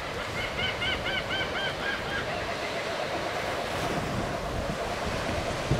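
Steady wash of small waves on the shore, with wind buffeting the microphone. About a second in, a bird gives a quick run of about ten short, high calls lasting a couple of seconds.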